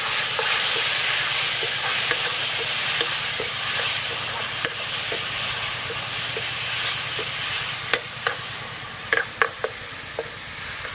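Tomato-and-spice masala sizzling in a hot steel kadai just after water is poured in, while a steel ladle stirs it. The hiss is loudest at first and slowly eases, and in the second half the ladle clinks against the pan a few times.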